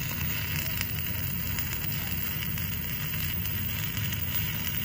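Stick-welding arc on a 7018 electrode crackling steadily, over a low hum.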